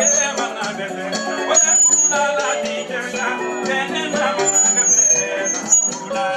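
Music with a singing voice over instruments and percussion.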